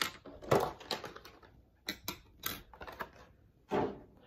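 Hard plastic packaging and clear plastic stand pieces being handled, giving a dozen or so irregular clicks and taps on a tabletop, the loudest about half a second in and another near the end.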